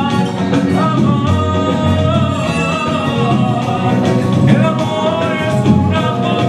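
A man singing with full voice over backing music.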